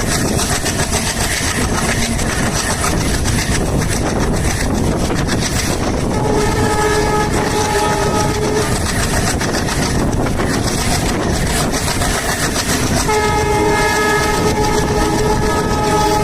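Indian Railways diesel locomotive's horn sounding twice over the loud, steady rolling clatter of the moving train. The first is a short blast about six seconds in, lasting about a second and a half. The second, longer blast starts around thirteen seconds in and is still going at the end. The horn sounds several tones together as one chord.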